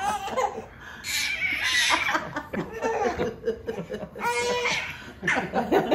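A baby and adults laughing together in repeated bursts, with a short held high note about four seconds in.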